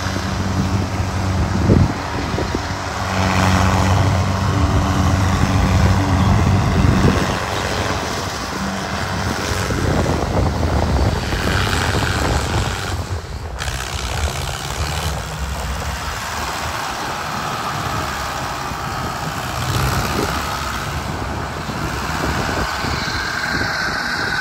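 Diesel tractor engine running as it pulls away towing a trailer loaded high with sacks of potatoes, with a steady low hum that is strongest for the first several seconds. A single sharp knock about two seconds in.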